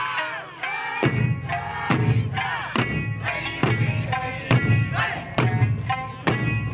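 Music with a steady beat, about one stroke a second, with a crowd of voices chanting over it.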